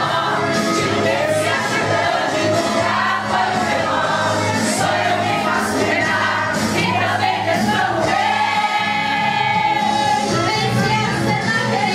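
Women's choir singing a hymn together from their hymnals, a steady full sound of many voices.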